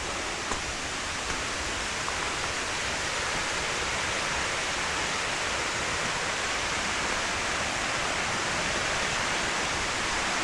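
Steady rushing of water from a waterfall cascade, growing slowly a little louder.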